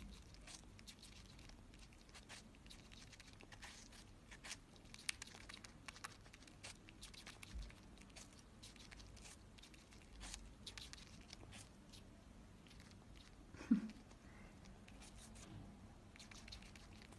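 Eurasian red squirrel gnawing and chewing a slice of apple: faint, quick, crisp little bites and crunches. One louder brief sound about three-quarters of the way through.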